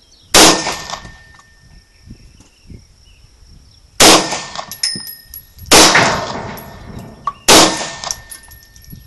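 Four single shots from a 9mm Ruger P95 pistol, unevenly spaced: one just after the start, then three about two seconds apart from the middle on, each followed by a short ringing tail.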